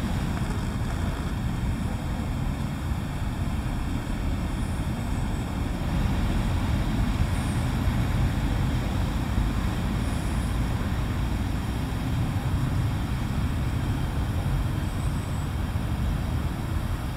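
Steady low rumble of outdoor background noise with no distinct events, and a few faint high chirps.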